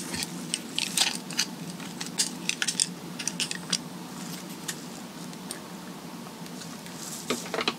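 Scattered small clicks and ticks of steel pliers gripping and working a plastic QS8 connector housing. They come thickest in the first few seconds and again near the end, over a faint steady hum.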